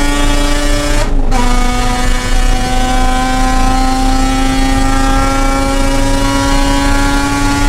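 Mazda RX-8's two-rotor rotary engine under full throttle. It upshifts about a second in, then pulls steadily through the next gear with its pitch slowly rising.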